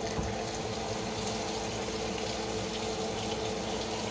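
Steady hiss with a constant hum underneath, the even running noise of a kitchen, with a few faint light taps.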